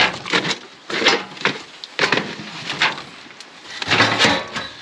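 A series of wooden knocks and clatter as things are handled in a wooden shed: several sharp knocks in the first few seconds, then a louder, longer clattering rustle about four seconds in.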